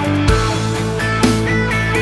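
Instrumental background music: held pitched notes over a beat with sharp drum-like strikes.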